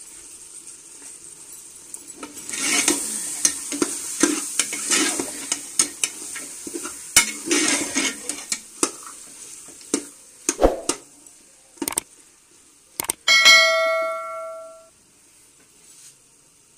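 Beef keema and peas sizzling in ghee in a pressure-cooker pot while a steel slotted spoon stirs, scraping and clinking against the metal. Near the end the spoon strikes the pot once with a sharp clang that rings for about a second.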